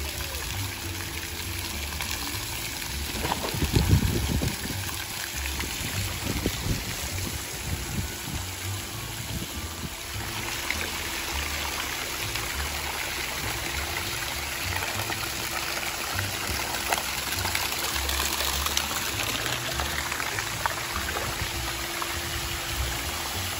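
Water from pool play features (spray jets, a water arch and a mushroom-shaped shower) steadily pouring and splashing into a shallow pool, with a louder splash about four seconds in.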